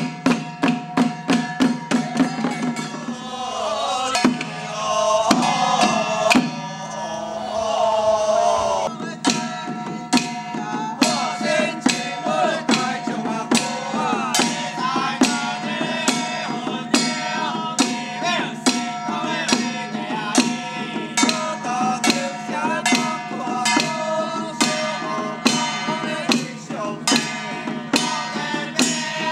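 Handheld temple drums beaten with sticks in a steady, quick beat over a held droning tone, with a voice chanting for a few seconds near the start.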